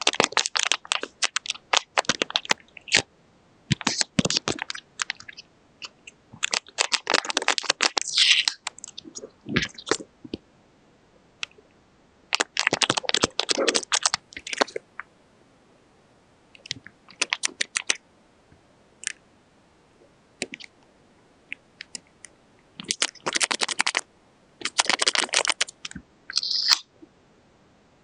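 Paper being handled and worked: scratchy, crinkling bursts of a second or two at a time, separated by quiet pauses.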